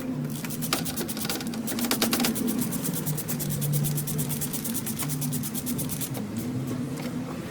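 Ratchet wrench clicking rapidly for about two seconds as bolts are run down, then a few scattered clicks, over a steady low hum.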